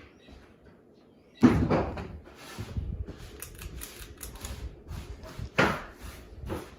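Irregular knocking and rapid clicking, with a loud clatter about a second and a half in and another loud knock near the end.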